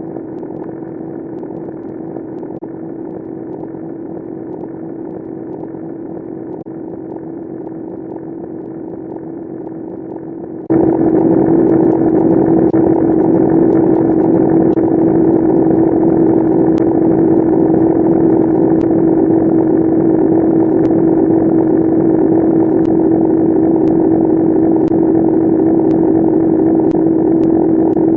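A ringtone sped up to an absurd speed, smeared into a steady buzzing drone on one constant pitch. About ten seconds in it jumps abruptly louder and brighter, then holds steady.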